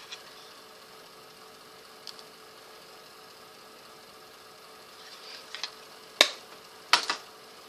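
Plastic eyeshadow palette cases clicking and knocking as they are handled and opened: a couple of faint ticks, then several sharp clicks in the last two or three seconds, over a faint steady hum.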